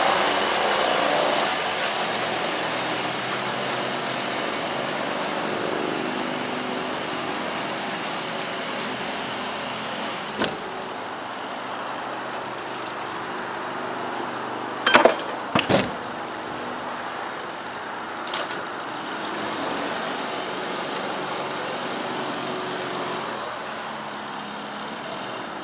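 Narrowboat engine running steadily as the boat cruises along the canal. A few sharp clicks cut across it: one about ten seconds in, a quick cluster around fifteen seconds, and one more a little after eighteen seconds.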